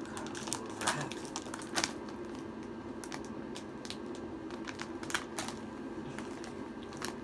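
Crunchy pretzel crackers being chewed, with irregular sharp crunches and some crinkling of the plastic snack bag.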